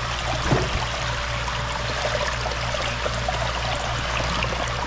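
Creek water running and trickling steadily, with a single knock about half a second in.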